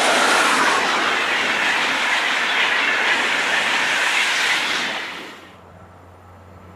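DB class 101 electric locomotive and Intercity coaches passing at speed close by: a loud, steady rush of wheels on rail and air. It cuts off about five and a half seconds in, leaving only a faint low hum.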